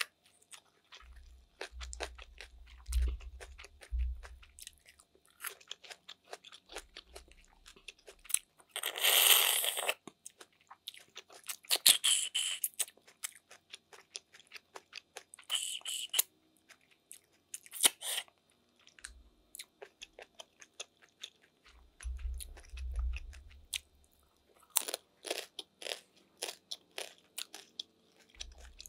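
Close-miked eating of snails in coconut sauce: meat sucked from the shells by mouth, with wet chewing and many small clicks. A few louder noisy bursts stand out, the longest about nine seconds in.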